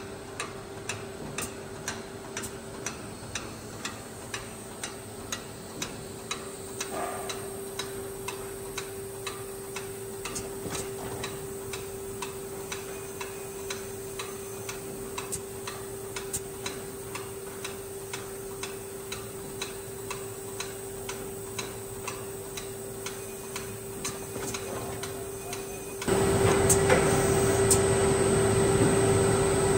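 Industrial bread-line machinery running: a steady hum with regular mechanical ticks a little under twice a second. About 26 s in, the sound jumps to a much louder, steady rushing noise.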